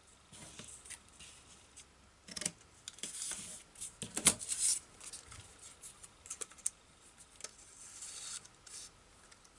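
Cardstock and glitter paper strips handled and slid across a craft mat: irregular rustling and scraping with a few light taps, loudest about four seconds in.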